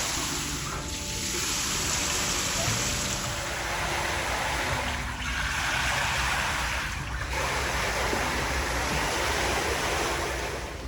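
Rushing, splashing water in a spa pool, a steady noise that dips briefly twice.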